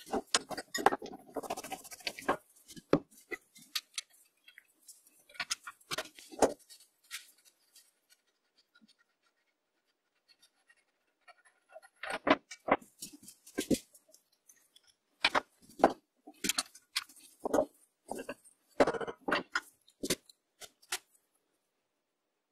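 Irregular metallic clicks, clinks and knocks of tools and parts being handled while an old lathe's spindle is taken apart, with a pause of a few seconds in the middle.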